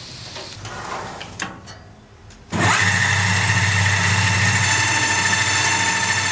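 Rems Unimat 75 thread-cutting machine switched on about two and a half seconds in, spinning up quickly and then running steadily. Before it starts there are a few faint clicks and knocks.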